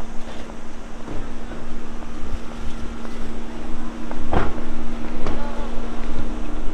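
Wind rumbling on the microphone over outdoor street noise, with a steady low hum underneath. A single sharp knock comes a little over four seconds in.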